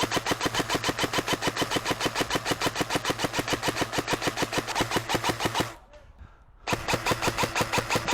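Airsoft electric gun firing long full-auto bursts, an even rattle of about six to seven shots a second. It breaks off about six seconds in and starts again about a second later.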